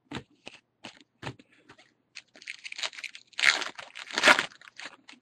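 A few light clicks of cards being handled, then the foil wrapper of a baseball card pack crinkling and tearing open, with two louder rips near the end.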